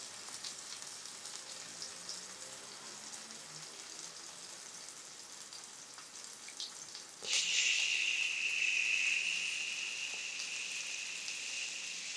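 Slices of garlic bread frying in hot oil in a nonstick pan, a faint sizzle that jumps suddenly much louder about seven seconds in and then holds as a steady hiss, easing off slightly near the end.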